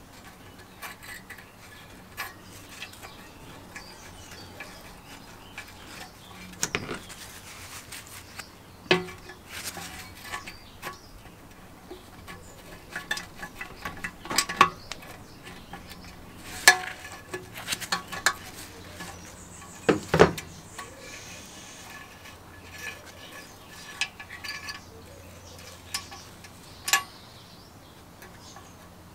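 Hand tools and small metal parts clicking and clinking irregularly against the carburetor and throttle linkage of a 1974 Briggs & Stratton 3HP engine as it is taken apart. A couple of louder knocks come about two-thirds of the way through, over a faint steady hum.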